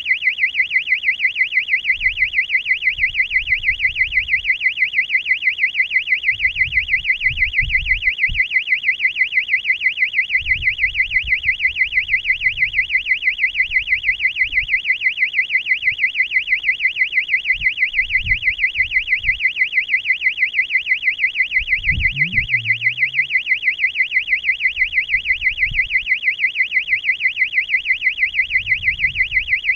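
Electronic alarm buzzer sounding a continuous high-pitched warbling tone that rises and falls about three times a second, with faint low rumbles now and then.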